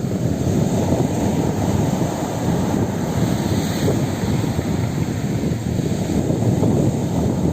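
Sea surf washing onto the shore as a steady, deep rush, with wind buffeting the microphone.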